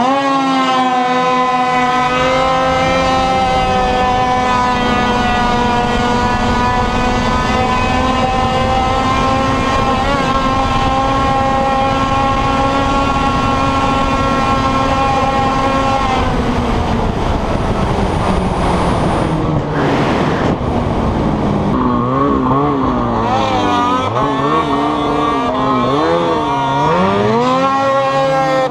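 800 cc two-stroke snowmobile engine launching hard from a standstill. It revs up steeply and is held at wide-open throttle with a steady high pitch for about sixteen seconds, then eases off. In the last several seconds the throttle is worked on and off, so the pitch swings up and down.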